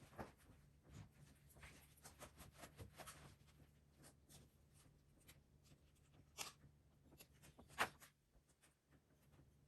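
Faint handling noise from hands fitting small parts: scattered light clicks and rubbing, with a sharper click about six and a half seconds in and a louder one near eight seconds, over a steady low hum.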